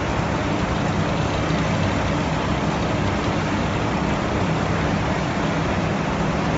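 Continuous conveyor fryer line running: a steady machine hum with a low drone and an even hiss.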